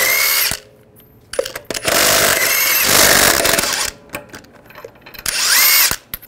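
Cordless impact wrench spinning lug nuts off a truck wheel, in three bursts: one that stops about half a second in, a longer one of about two seconds in the middle, and a short one near the end. Each burst opens with a rising motor whine.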